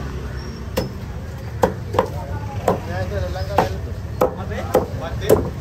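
Heavy cleaver chopping through a large fish on a wooden chopping block: about eight sharp strikes at an uneven pace.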